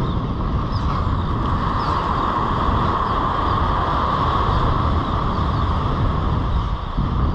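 Wind buffeting the microphone over waves washing onto the beach, with a steady mid-pitched whine over the rumble.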